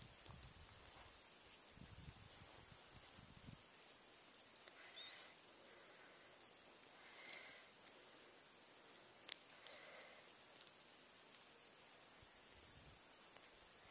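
Faint, steady, high-pitched insect trill. A few light clicks and low handling rustles from the fishing tackle being worked by hand come in the first few seconds.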